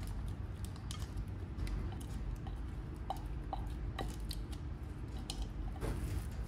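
Scattered light clicks and taps of kitchen utensils and containers being handled, over a steady low hum, with a short scrape near the end.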